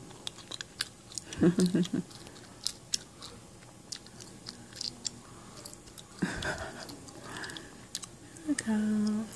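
Wet mouth clicks and lip smacks scattered throughout, with brief soft voice sounds about one and a half seconds in and a short hummed note near the end.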